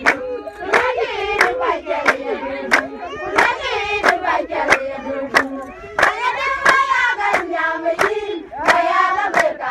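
A group of women singing together in chorus, with sharp hand claps keeping a steady beat, a few claps each second.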